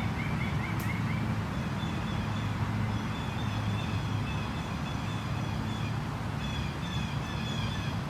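Small birds chirping in quick repeated series: a short run of notes in the first second, then longer, higher chirping through the rest. Under them run a steady low traffic hum and the even rush of the creek.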